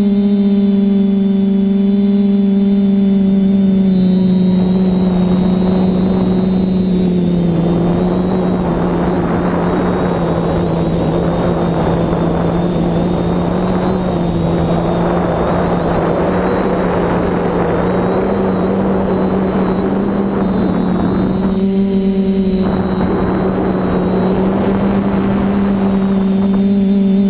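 Quadcopter's electric motors and propellers humming steadily, heard from on board the airframe. A loud rushing noise of air comes in about four seconds in and lasts most of the way, breaking off briefly near the end. The hum dips slightly in pitch while the rushing is there.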